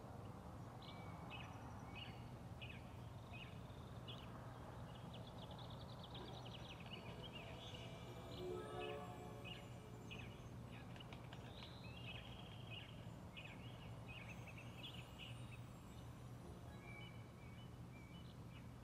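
Faint bird chirps and tweets repeating throughout, with a quick descending run of notes about eight seconds in, over a steady low hum.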